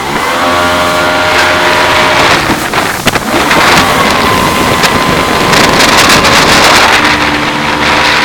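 Jet boat engine under way, its note rising as it revs up at the start, then mostly covered by a loud rush of water and wind on the microphone for several seconds before the steady engine note comes through again near the end.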